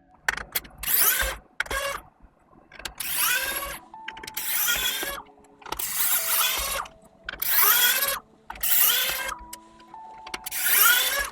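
Small electric screwdriver whirring in about seven short bursts, each rising in pitch as it spins up, as it backs out the keyboard case's tight screws.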